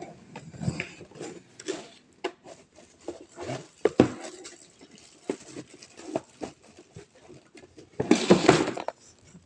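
Handling of an unboxed item and its parts: scattered light clicks and knocks, one sharper knock about four seconds in, and a brief louder clatter near the end.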